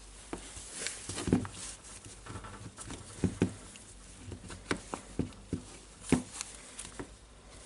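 Irregular light clicks and knocks of metal and hard plastic parts being handled: the impact wrench's metal hammer housing being fitted into its plastic clamshell half. A few sharper knocks come around three seconds and six seconds in.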